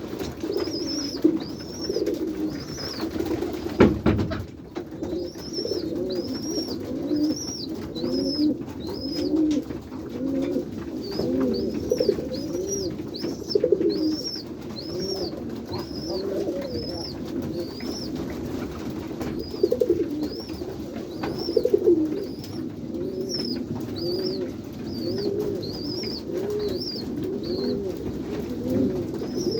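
Many domestic pigeons of the white Kaguji high-flyer breed cooing together, their overlapping coos running on without a break. A thin high chirp repeats through most of it, and there is a single thump about four seconds in.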